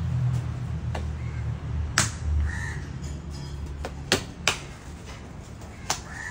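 Oiled porotta dough being slapped and pressed flat by hand on a greased work table: five or six sharp slaps, spaced unevenly, over a low hum that stops about four seconds in. A short call sounds in the background about halfway through.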